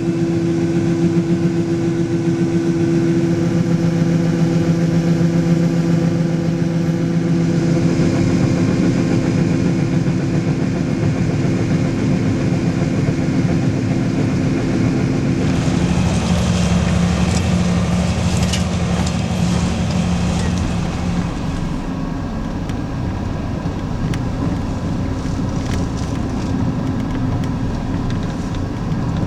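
Heavy farm machinery engine running steadily. About halfway through its note changes and a clattering rattle joins in for a few seconds.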